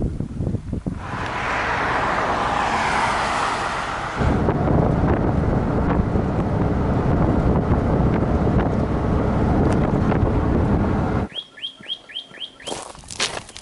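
Wind buffeting the microphone, then the steady rush of wind and road noise in the open bed of a pickup truck moving down a highway. Near the end the noise drops away and a bird gives about five quick chirps in a row.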